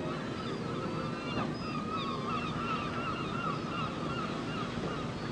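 A flock of gulls calling over a fishing harbour, many short gliding cries overlapping into a continuous chorus, over a steady wash of background noise.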